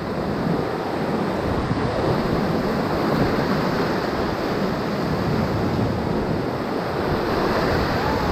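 Whitewater rapid rushing and churning steadily around a raft.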